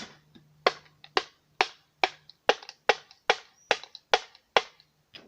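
Rubber mallet knocking on a Puch E50 moped engine's crankcase in a steady run of about a dozen blows, a little over two a second, to split the case halves apart.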